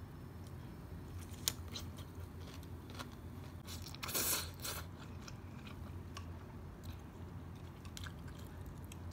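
Biting and chewing a crisp pickled cucumber: a few sharp crunches, the loudest and longest about four seconds in.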